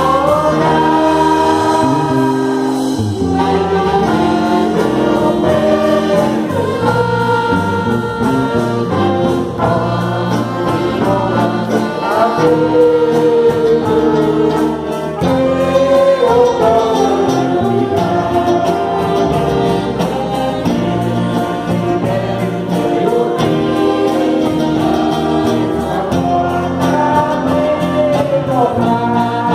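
Gospel hymn performed by an orchestra with trumpets and other brass, with voices singing along in long held notes.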